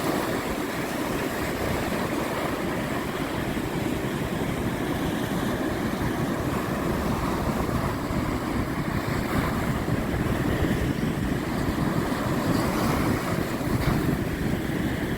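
Steady rush of waves and surf, with wind buffeting the microphone.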